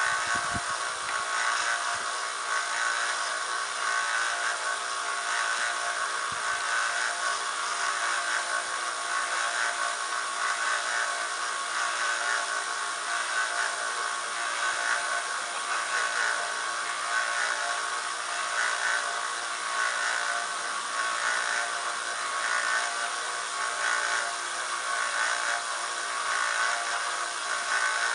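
Small bench belt grinder running with a steady whir as a sword's edge is sharpened against its 400-grit belt.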